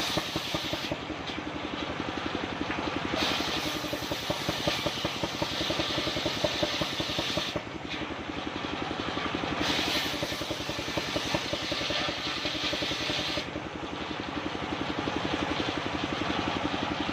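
Engine-driven homemade circular saw running steadily, its engine pulsing evenly. Over it, a higher hiss comes and goes in stretches of a few seconds as the blade cuts through jackfruit wood, with short lulls between cuts.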